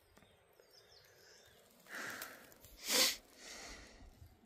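A person breathing hard close to the microphone: a breath about two seconds in, a louder, sharper one about a second later, then a softer exhale.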